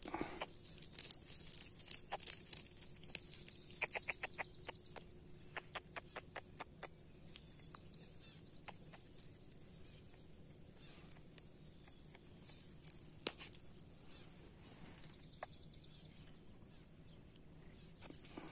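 Faint clicks and taps from handling a freshly caught small trevally and unhooking it from the line, with a quick run of clicks about four seconds in and a sharper tap a little past halfway.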